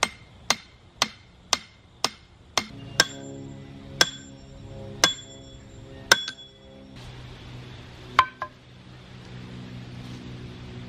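A hammer strikes the top of a metal rod being driven into hard, dry soil to break it up for a fence post hole where an auger won't go. It makes sharp metallic clanks, about two a second at first, then slowing to about one a second with a ringing tone, and a last strike comes about eight seconds in. A faint low hum is heard in the last few seconds.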